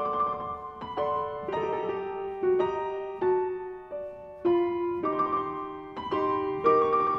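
Background piano music: gentle notes and chords struck one after another, each fading before the next.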